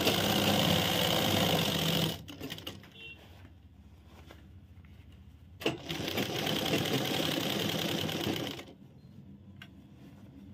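Sewing machine stitching the seat seam of a pair of trousers in two runs: the first stops about two seconds in, and the second starts with a click just before six seconds in and stops about three seconds later.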